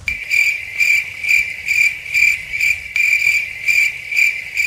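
Insect chirping: one steady high-pitched trill that swells in even pulses about two to three times a second, like a cricket.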